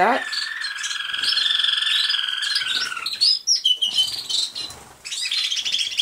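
Male American Singer canary singing in roller canary style with his beak closed: a long rolling trill of about three seconds, then a few short notes, and another roll near the end.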